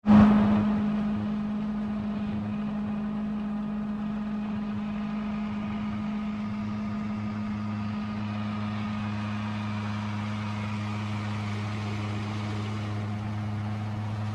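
Engine running steadily at a constant speed, with an even hum and a lower drone joining about halfway through.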